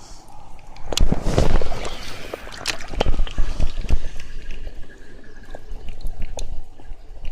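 Water sloshing and splashing close by, loudest from about one to four seconds in, with several sharp knocks mixed in.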